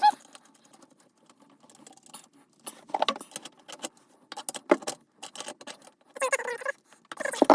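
Scattered clicks, taps and light rattles of plumbing fittings and a supply hose being handled and tightened while a bidet's water line is connected to the toilet.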